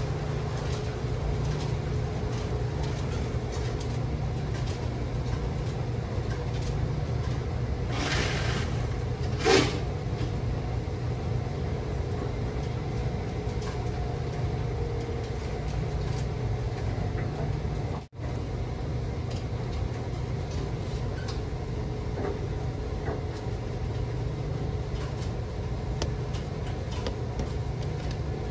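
Dexter T900 commercial front-load washer running, its drum tumbling a load of laundry with a steady low rumble and a faint hum. A single thump about nine seconds in as the load drops in the drum.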